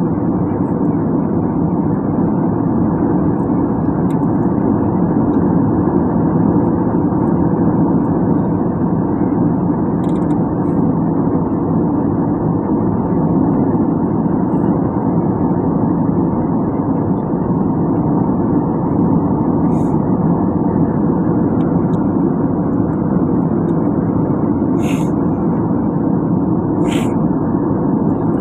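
Steady cabin noise of a jet airliner in cruise: an even rush of airflow and engine hum, with two faint clicks near the end.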